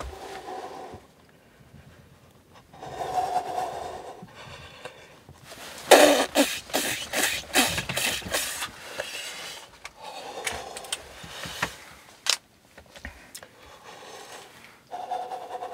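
Hunters breathing hard and laughing under their breath after a muzzleloader shot at a deer, with a burst of breathy laughter about six seconds in and a single sharp click about twelve seconds in.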